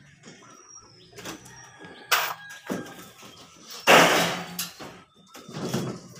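Gypsum board being handled and fitted against its frame: a few irregular knocks and scrapes, the loudest and longest about four seconds in.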